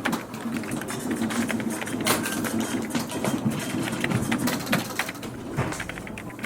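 Office printing machine running, a steady whirring, rattling mechanism over scattered keyboard clicks; the machine sound eases off about a second before the end.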